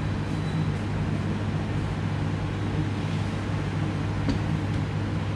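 Steady low hum of room background noise, with a faint click about four seconds in.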